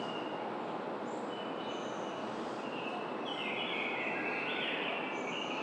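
Birds chirping and whistling in short, even-pitched notes over a steady rushing background noise, with a louder run of overlapping calls from about three and a half seconds in.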